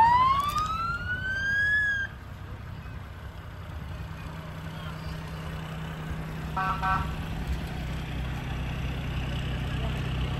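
Fire engine siren sweeping up in pitch, then cutting off suddenly about two seconds in. After it comes the low steady running of the truck's engine as it rolls past, with a brief high beep a little past the middle.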